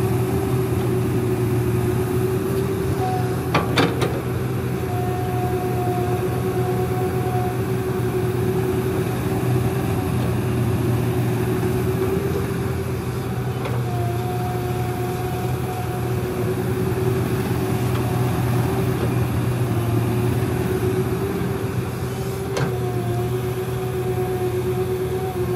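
Komatsu PC200 hydraulic excavator running steadily under load while digging and dumping soil, with a higher whine that comes and goes as the hydraulics work. Two sharp knocks, one about four seconds in and one near the end.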